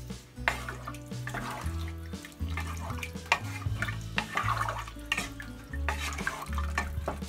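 Background music with a steady bass line, over a wooden spoon stirring beef and broth in a pot: liquid sloshing and sharp clicks of the spoon against the pot.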